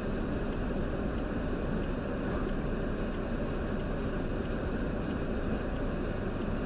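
Steady low rumble of vehicle and road noise picked up by a dashcam inside a car, with no distinct impacts or horns.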